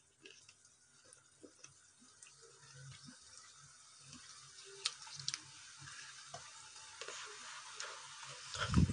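Potato and semolina cutlets deep-frying in hot oil in a kadhai: a steady hiss of bubbling oil that grows louder from about two seconds in as more cutlets go into the pan. There are a few light clicks about five seconds in and a low thump near the end.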